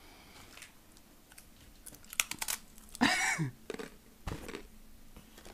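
A person chewing a crunchy seaweed biscuit, with a few sharp crunches about two seconds in. About three seconds in comes a short, loud vocal sound falling in pitch, and a little later a single dull thump.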